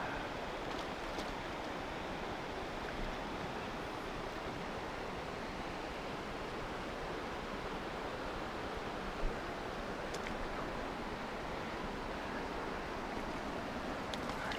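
Steady rush of flowing river water, with a faint brief knock about nine seconds in.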